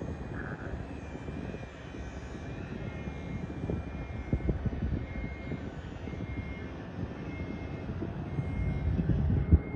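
Distant sport motorcycle, a Honda CBR1000RR SP with an inline-four engine, running on the race track as a steady far-off drone that grows louder near the end as it comes nearer. A few low thumps break in, the loudest just before the end.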